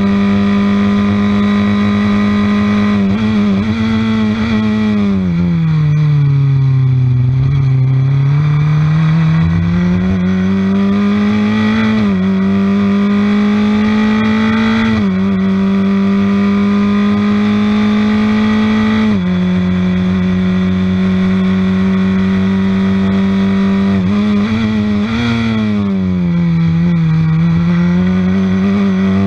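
On-board sound of a Piper DL07 Formula F race car's Honda Fit four-cylinder engine at racing speed. It is held at steady high revs, with short dips at gear changes. The revs fall away twice, about five seconds in and again near the end, then climb as the car accelerates out of the corners.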